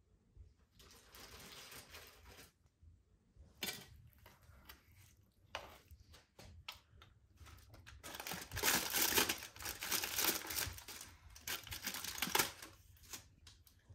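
Aluminium foil crinkling and rustling as grilled fish are lifted off foil-lined trays, with a few short knocks; the crinkling is loudest and most continuous in the second half.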